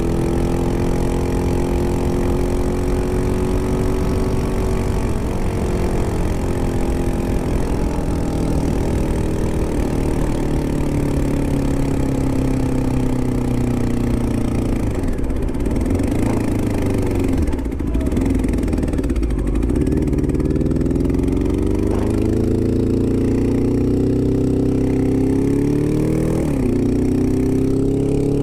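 Honda CBR600F4i inline-four engine running, its pitch sinking slowly and wavering unevenly, then climbing gradually again with a brief dip near the end. The owner hears it as knocking or misfiring and says the bike is losing power.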